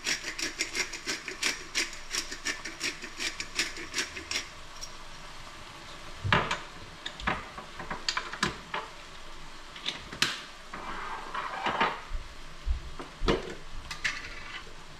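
A pepper grinder being turned, a quick run of crunchy clicks about four a second for the first four seconds or so. Then a few separate knocks and clatters of utensils and containers being handled and set down on the counter.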